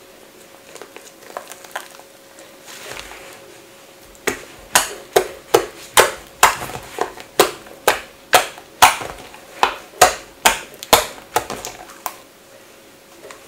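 Homemade borax-free slime being squished and folded by hand, then poked with the fingertips, giving a run of sharp pops and clicks about two a second from about four seconds in until near the end.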